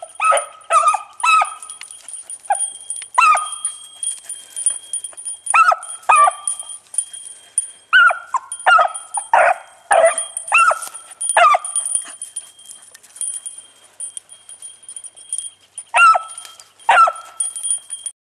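Beagle hounds baying on a rabbit's trail: about twenty short, loud barks, many in quick runs, then a pause of about four seconds before two last barks.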